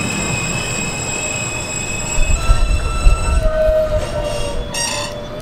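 R160 subway train pulling away, its wheels squealing in steady high tones over the rumble of wheels on rail. The rumble is heaviest about midway, and there is a brief sharper screech near the end.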